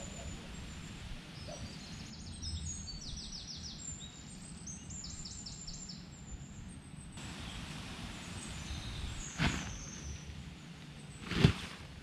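Small birds chirping in repeated quick trills over a steady outdoor background. Near the end come two short noisy bursts, the second louder, from a camping tarp being flung and shaken out over a line.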